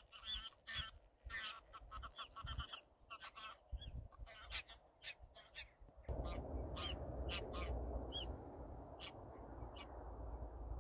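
A flock of birds calling: many short, harsh calls crowding together for the first three seconds, then coming singly and more spaced out. A steady low rumble comes in about six seconds in.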